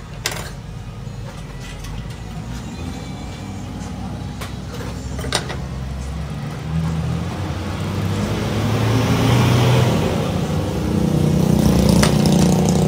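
A motor vehicle engine running close by, its low rumble growing louder over the second half. A few light clicks of small plastic and metal parts being handled sound over it.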